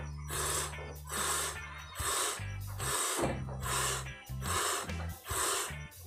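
Goat's milk squirting from hand-milked teats into a cloth-covered bucket, short hissing squirts about twice a second in a steady rhythm, with background music.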